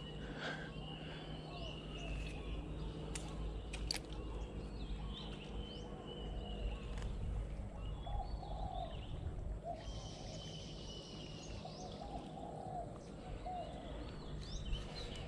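Outdoor ambience: small birds chirping and calling now and then over a low steady rumble, with a few sharp clicks.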